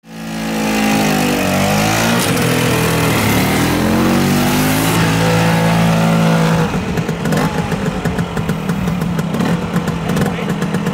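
1977 Vespa scooter's small two-stroke engine revving, its pitch rising and falling, then running hard with a rougher, choppier note from about seven seconds in as it pulls the scooter up the steep ski-jump ramp under heavy load.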